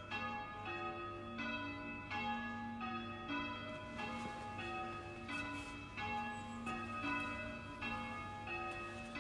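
Church tower bells ringing one after another in a steady succession of strikes, about two to three a second, each bell a different pitch, in the pattern of English change ringing.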